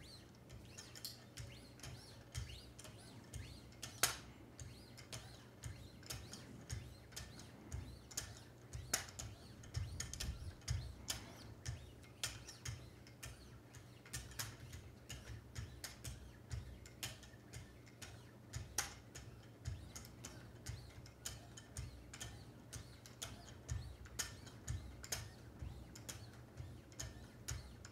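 Lapping-film holders on a guided Wicked Edge sharpener stroking along a clamped knife edge at the 1-micron stage: a faint, quick run of light ticks and scrapes, about two to three a second, over a low steady hum.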